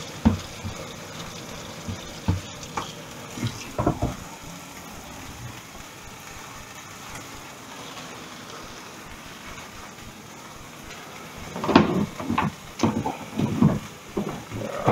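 Chicken breast frying in a pan on high heat, a steady sizzle, with a few short knocks in the first seconds and louder knocks and clatter near the end.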